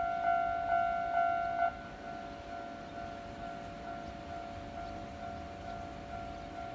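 Japanese railway level-crossing warning bell ringing its "kan-kan" dings, about two a second. The loud ringing cuts off sharply near two seconds in, and a fainter crossing bell keeps ringing at the same pace.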